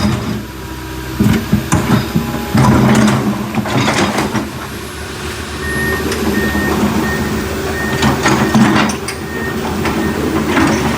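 Backhoe's diesel engine running steadily, with scattered clanks and scrapes of the working machine. Around the middle a row of about six short, evenly spaced beeps sounds from its warning alarm.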